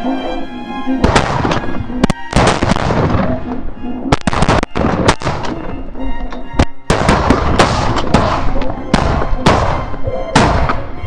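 Several shotguns firing a rapid, uneven volley of shots, some overlapping, from about a second in to near the end. Background music plays underneath.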